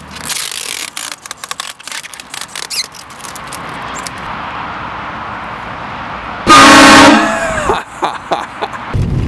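One very loud train horn blast about six and a half seconds in, a chord of several tones lasting about half a second and cutting off suddenly. Before it there are scattered clicks and a steady hiss.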